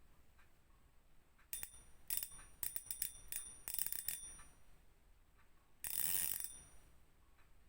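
Fishing reel drag clicking as line is pulled off: several short ratcheting runs with a metallic ring, then about a second later a quick continuous buzz of the drag lasting about half a second.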